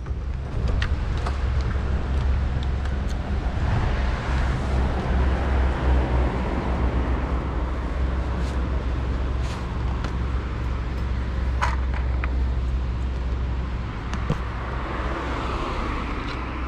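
Harley-Davidson V-twin engine running low and steady at idle, with city street traffic noise around it and a few sharp clicks.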